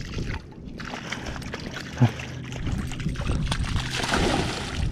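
A small dog splashing as it runs out through shallow lake water, the sloshing growing stronger through the middle and latter part, with one sharp knock about two seconds in.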